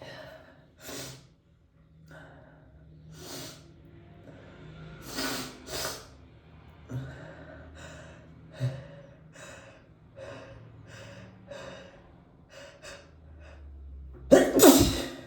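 A person's sneeze build-up: a long series of short gasping in-breaths and sniffs, then one loud sneeze near the end.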